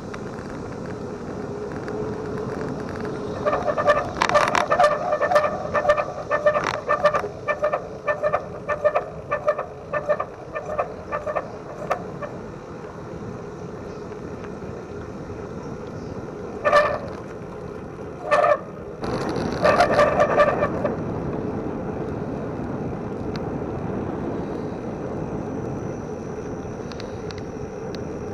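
Bicycle brakes squealing in quick repeated squeaks for several seconds, then three more short squeals a little past the middle, over steady wind and tyre rush. The brakes make a lot of noise but work.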